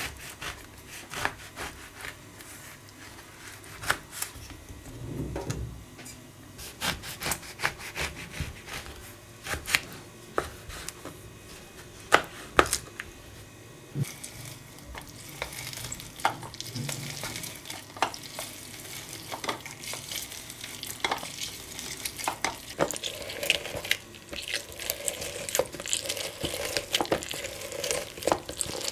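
Small knife cutting into an orange on a plastic board, with scattered sharp clicks and knocks, then orange halves twisted and pressed on a plastic hand citrus juicer, a steadier wet grinding and squishing with plastic clicks from about halfway on.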